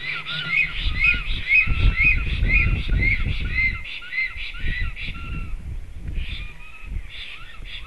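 Black storks calling at the nest: a fast, even series of high, arched whistled notes, about two a second, thinning to a few scattered notes after about four seconds, with low rumbling underneath while the series lasts.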